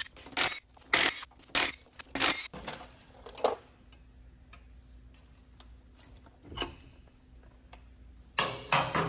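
Cordless power tool and socket run in short bursts, about every half second, undoing the 5/16 Whitworth bolts that hold the half-shaft drive flange in a Land Rover Series III's wheel hub. The bursts stop after about three and a half seconds. After a quiet stretch there is a single knock, then a few metallic clatters near the end.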